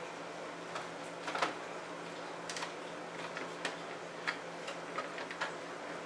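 Irregular light clicks and taps of hands handling cables and plastic and metal parts inside an open Dell Optiplex 745 small-form-factor computer case, the sharpest about a second and a half in, over a steady low hum.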